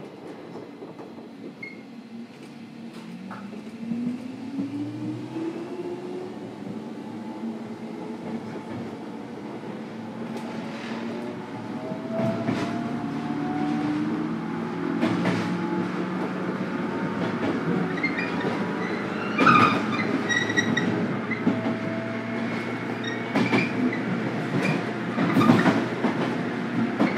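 A JR 103 series electric train, heard from inside its motor car, pulling away and accelerating. The traction motor whine rises in pitch in steps as it speeds up, with wheels clicking over rail joints and a few sharp knocks in the second half.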